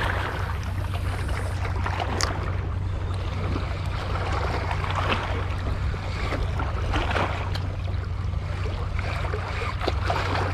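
Small waves washing and splashing against shoreline rocks, with irregular sharp splashes over a steady wash and a steady low wind rumble on the microphone.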